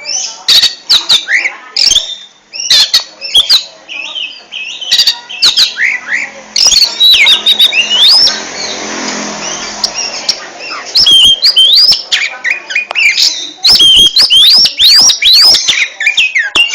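Oriental magpie-robin (kacer) singing loudly in the fast, aggressive 'ngentrok' style: rapid strings of whistled notes sliding up and down, broken by sharp clicks, with a harsh rasping stretch about halfway through.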